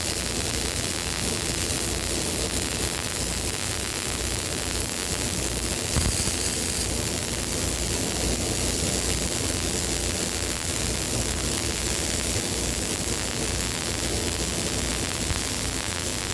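Steady hissing noise with no clear pitch, with a single small click about six seconds in.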